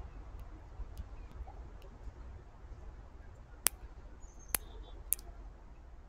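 A bird pecking at seed in a plastic feeder dish close to the microphone: three sharp clicks in the second half, about half a second to a second apart, over a steady low rumble.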